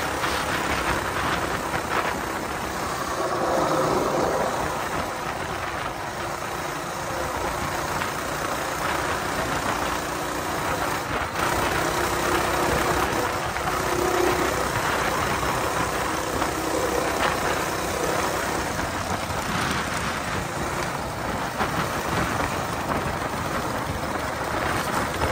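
Small single-cylinder engine of a Coleman BT200X mini bike running steadily under way, mixed with steady wind and road noise.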